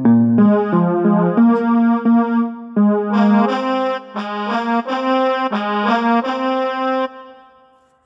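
Phone ringtone: a short electronic melody of quick, bouncy notes, about three a second. It turns brighter about three seconds in and stops about seven seconds in, fading away.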